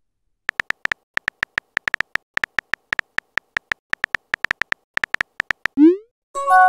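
Phone keyboard sound effects: a quick run of short typing clicks as a text message is typed, then a short rising whoosh as it is sent, and a steady chime a little before the end.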